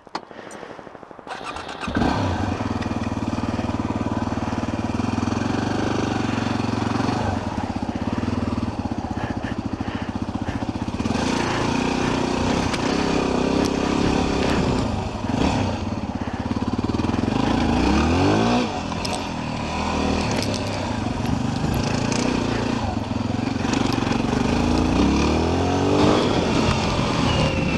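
Yamaha WR250R's single-cylinder four-stroke engine starting about two seconds in, then running steadily, with the revs rising and falling twice in the second half.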